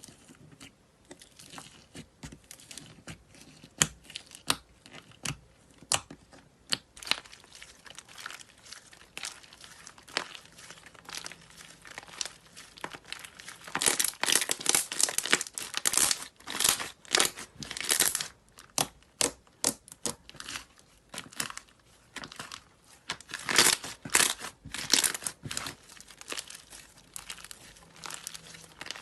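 Slime being squeezed, poked and stretched by hand, making sharp clicking and popping sounds, with denser crackling runs about halfway through and again about three-quarters through.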